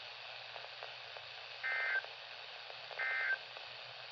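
EAS end-of-message data bursts from a NOAA Weather Radio transmitter: two short bursts of digital data tones, a little over a second apart, over steady radio hiss from a weak, distant signal.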